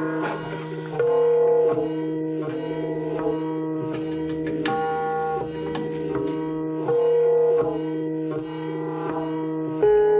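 Music with plucked strings over a held drone and hand-drum strokes, in an Indian classical style, played back through small studio monitor speakers.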